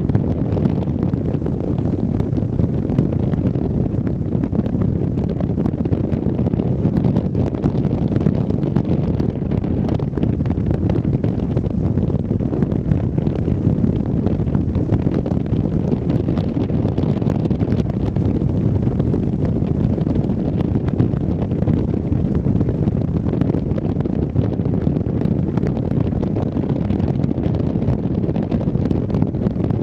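Wind buffeting the microphone: a steady, loud, low rumble with no pauses.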